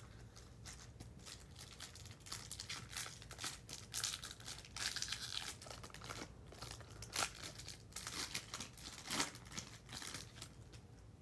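Foil wrapper of a Topps Chrome trading-card pack crinkling and tearing as it is opened by hand, in irregular crackly bursts with a few sharper crackles.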